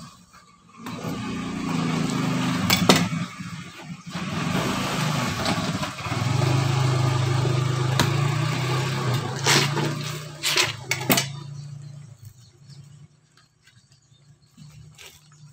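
A vehicle engine running with a steady low hum for about eleven seconds, then fading away. Several sharp knocks sound over it, from the knife blade working into the coconut husk.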